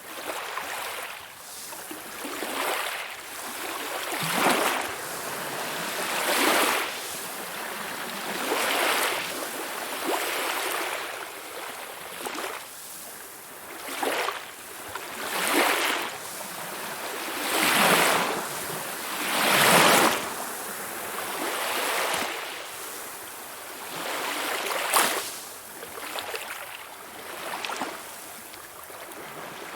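Calm sea waves washing onto the shore, the wash swelling and falling back about every two seconds.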